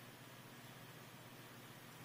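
Near silence: a faint steady hiss with a low hum and no thunder.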